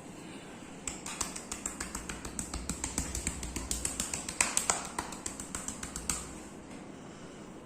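Rapid percussive massage strokes: hands striking in quick, even succession, about six sharp slaps a second, starting about a second in and stopping about six seconds in.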